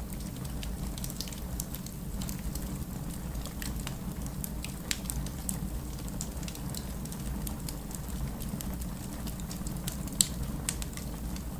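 Fire crackling in a fireplace: scattered small pops and snaps over a steady low rumble, with one sharper, louder pop about ten seconds in.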